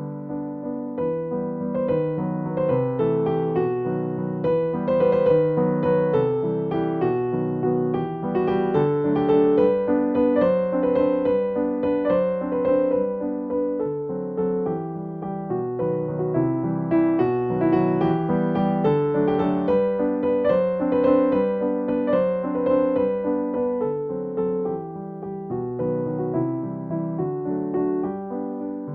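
Soft background piano music: a gentle melody of sustained keyboard notes with chords underneath.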